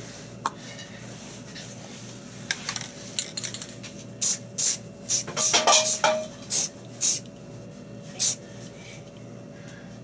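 Aerosol can of spray enamel giving a series of short spray bursts, about seven quick hisses in the second half. Before them come a few light clicks and clinks of the can being handled.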